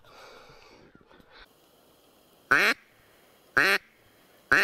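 Hunter's mouth-blown duck call sounding three short quacks, about a second apart.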